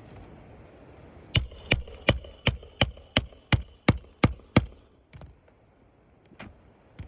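Hammer driving a roofing nail through a shingle: about ten quick, evenly spaced blows, about three a second, with a metallic ring. A few fainter knocks follow.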